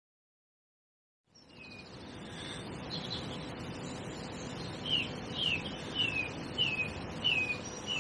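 Silence for about the first second and a half, then outdoor ambience fades in: a steady low background hiss with a bird calling. Near the end the bird gives a short downward-sliding chirp about every half second, six times.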